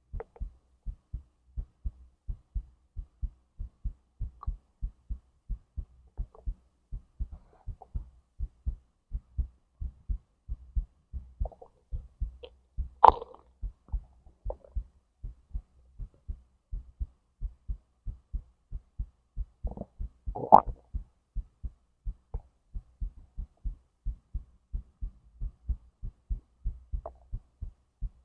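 A person's heartbeat thudding in a steady, even rhythm, low and close. A few short stomach and intestinal gurgles come over it, the loudest about halfway through and again about two-thirds of the way in.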